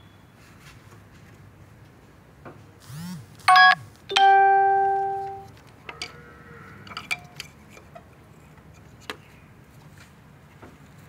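A two-note ding-dong chime: a higher note, then a lower one that rings out and fades over about a second and a half. A short warbling sound comes just before it, and a few light clicks follow.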